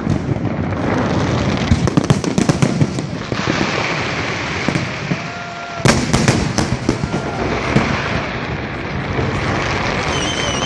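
Fireworks display: continuous dense crackling with sharp bangs in clusters about two, six and eight seconds in, and brief whistling tones about five seconds in and near the end.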